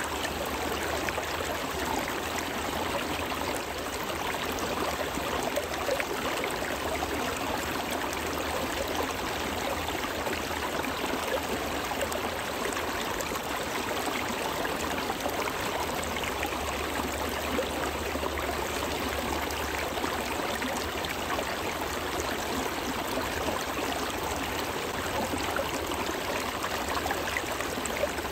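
Shallow, partly iced-over meltwater stream running over rocks: a steady rush and trickle of water.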